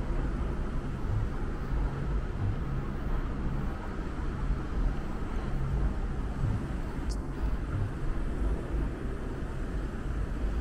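Steady low rumble of road traffic crossing the Sydney Harbour Bridge deck overhead, with a single brief click about seven seconds in.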